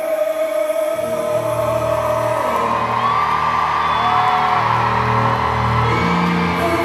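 Live R&B performance: a male singer holds a long sung note over a band, with low bass notes coming in about a second in and further sung phrases over sustained chords.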